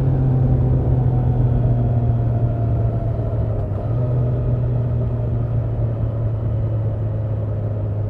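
A 2024 Triumph Trident 660's 660 cc inline three-cylinder engine and exhaust, heard on board while cruising. It is a steady drone whose pitch eases slowly lower as the bike rolls along.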